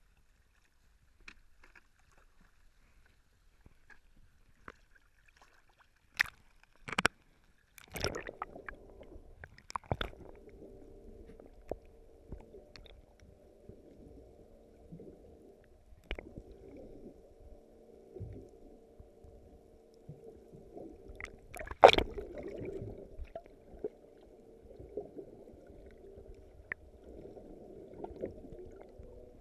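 A camera held underwater in seawater. A few sharp knocks come first. About eight seconds in the sound turns muffled, with water sloshing against the camera over a steady low hum. A loud knock comes a little past twenty seconds in.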